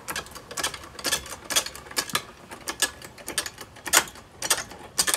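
Hydraulic floor jack being pumped by hand to raise a car, giving sharp metallic clicks and clanks about twice a second.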